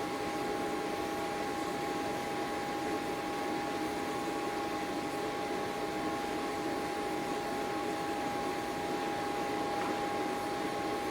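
A workshop machine running steadily, a constant hum with one sustained tone and no hammer blows.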